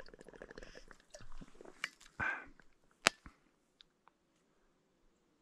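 Crunching footsteps on frozen, frosty ground at the edge of an iced-over lake, with irregular close clicks. There is one loud sharp crack about three seconds in, and it is nearly quiet for the last two seconds.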